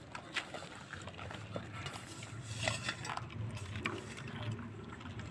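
Several puppies eating off a concrete floor, with scattered short chewing and lapping clicks over a steady low hum.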